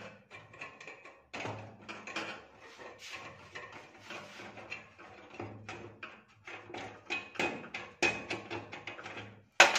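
Metal tool scraping, clicking and tapping against a gas stove's burner assembly as it is worked loose from underneath, in uneven bursts of small knocks and scrapes.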